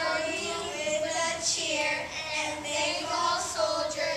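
A group of children's voices in unison, holding long drawn-out pitches.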